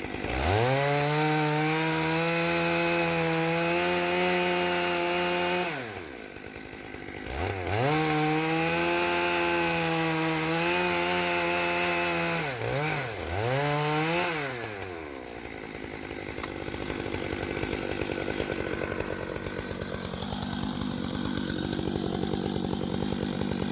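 Stihl 661 chainsaw on an Alaskan chainsaw mill, held at high revs for about five seconds, dropping off, then held high again for about five seconds, followed by two short blips of the throttle. After that it falls to a lower, quieter rough noise.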